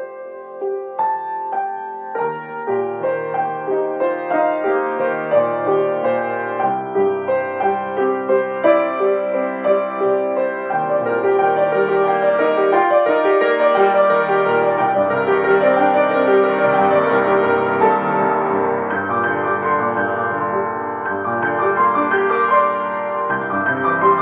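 Solo piano improvisation: many notes sounding together in a flowing passage, growing louder and fuller about halfway through.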